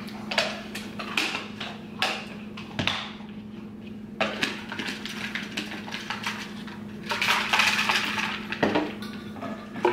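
Kitchen handling noises while a pre-workout drink is made: several sharp clicks and knocks of a plastic tub, scoop and shaker bottle in the first few seconds. Then a stretch of rushing noise of about a second and a half, seven seconds in.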